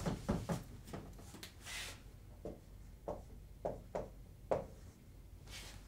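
Whiteboard eraser rubbing briefly, then a dry-erase marker tapping and stroking on the whiteboard: a few soft separate knocks about half a second apart and faint scratchy strokes.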